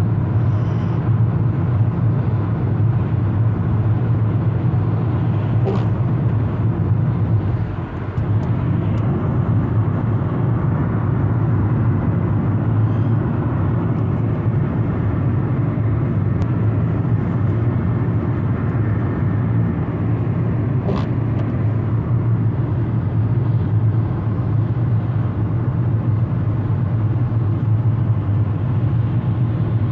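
Steady road noise inside a car's cabin at highway speed: a low engine and drivetrain hum with tyre hiss on wet pavement, and two brief clicks, one about six seconds in and one about twenty seconds later.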